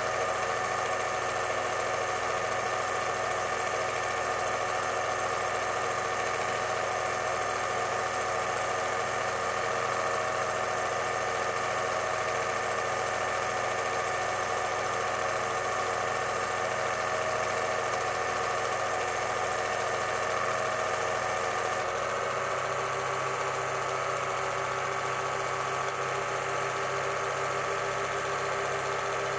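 8mm cine projector running: a steady mechanical whirr of the motor and film transport, with a slight shift in tone about three quarters of the way through.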